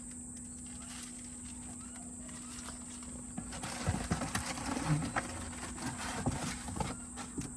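Cables and plastic packaging being handled: quiet at first, then light irregular clicks and knocks with rustling from about halfway through, over a steady faint hum.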